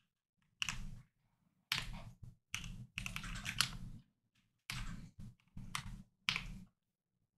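Typing on a computer keyboard: several quick runs of keystrokes with short pauses between them, stopping shortly before the end.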